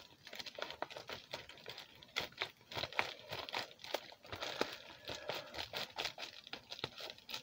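Scissors cutting along the edge of a plastic bubble mailer: irregular snips with crinkling of the plastic.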